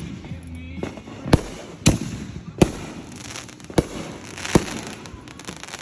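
Firework going off after being lit: five sharp bangs at uneven intervals of roughly a second, with crackling in between.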